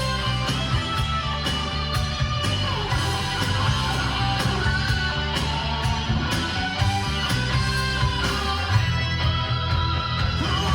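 Rock-style music with guitar playing through the 2016 Montero Sport GLS Premium's factory car stereo, recorded inside the cabin on a phone.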